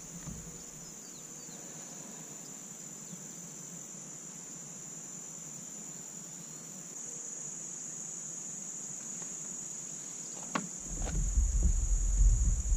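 Steady high-pitched chorus of insects, growing a little louder about halfway through. Near the end, a sharp knock followed by low rumbling and bumps from the angler moving about in the kayak.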